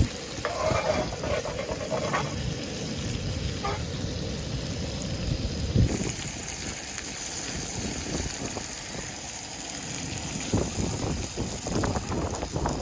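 Monkeyface prickleback fillet frying in butter in a pan, a steady sizzle whose high hiss grows stronger about halfway through, over wind noise on the microphone with a few low knocks.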